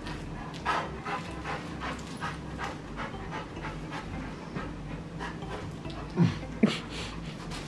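A dog panting in quick, even breaths, about three a second. A little past six seconds there are two short louder sounds, the first falling in pitch.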